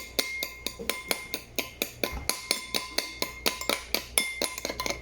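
A fork or spoon beating egg in a bowl, clinking rapidly against the bowl's side at about four or five strokes a second, some strikes ringing briefly.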